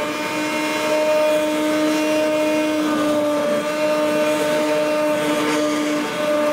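Stainless steel hand (immersion) blender running at a steady speed in a pot of cooked spinach, puréeing it. The motor gives a constant whine.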